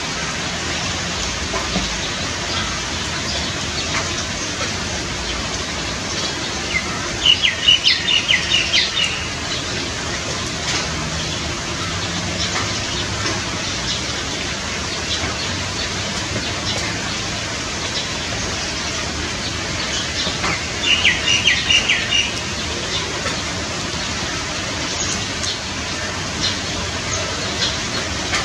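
Steady rain, an even hiss with scattered ticks of single drops. A bird sings a short phrase of rapid high chirps twice, about a quarter of the way in and again about three-quarters through.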